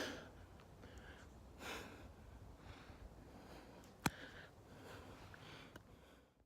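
A person breathing hard in short, repeated puffs while climbing a steep trail. There is a sharp click about four seconds in.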